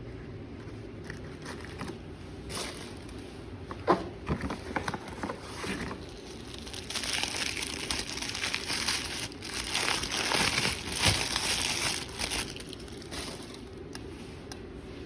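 Packaging crinkling and rustling as it is handled, with a few sharp clicks about four seconds in and a longer, denser stretch of crinkling in the middle.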